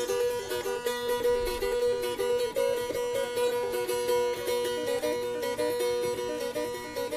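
A plucked string instrument playing a quick stepping melody over a steady drone note, in T'boli traditional style.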